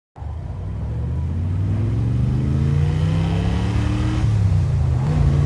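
Drift car's engine running, its pitch climbing slowly as the revs build, dipping briefly about four seconds in, then holding steady.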